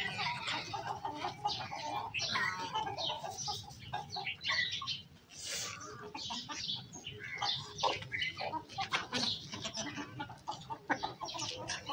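Flock of Australorp chickens clucking, with many short calls overlapping one another.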